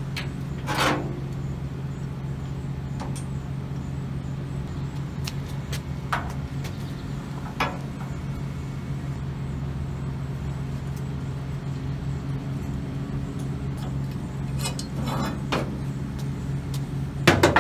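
A steady low engine drone, as of an idling vehicle or machine, with a few short knocks of a steel door frame being handled against the car body. The loudest knocks are a pair near the end.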